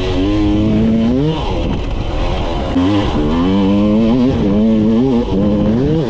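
Yamaha YZ250 two-stroke dirt bike engine under riding, revving up and dropping back over and over as the throttle is worked. The pitch climbs sharply about a second in, again around three seconds, and once more near the end.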